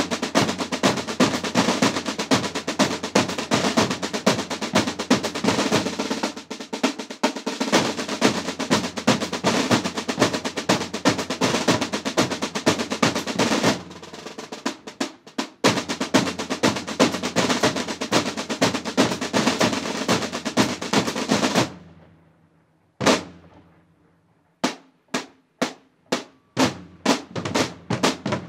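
Marching snare drums and bass drums of a drum corps playing a fast cadence of rolls and rapid strokes. About three-quarters of the way through, the playing stops and rings away. One loud single hit follows, then single strokes that start spaced out and speed up.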